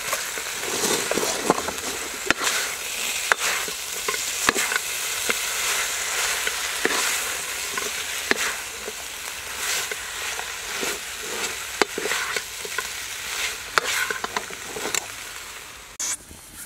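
Snake meat and leafy greens sizzling in a hot wok while a wooden spatula stirs them, with many sharp clicks and scrapes of the spatula against the pan. The sizzling stops suddenly near the end.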